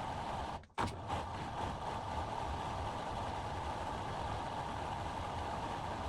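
Washing machine running with a steady mechanical hum, broken by a short cut under a second in.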